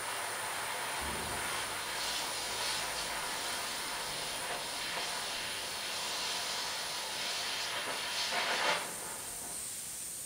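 Handheld gas torch hissing steadily while its flame heats a cut-open lithium battery to ignite it. The hiss swells briefly near the end, then stops.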